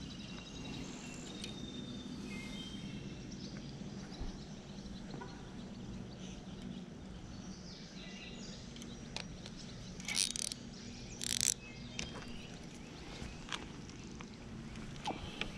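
Outdoor ambience: faint bird chirps over a steady low background noise, with two short rustling noises about ten and eleven seconds in.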